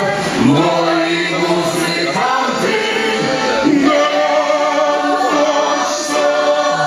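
Lemko folk choir singing a folk song in several voices, women's and men's voices together, with long held notes.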